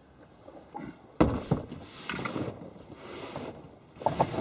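A plastic cooler is set down with a thump on a vehicle's carpeted cargo floor about a second in, then scraped and shoved into place. A few lighter knocks follow near the end.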